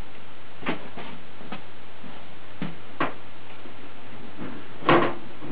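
Side cover of a Dell Dimension E510 computer case being worked onto its tabs: a series of irregular clicks and knocks, the loudest near the end, as the panel is seated.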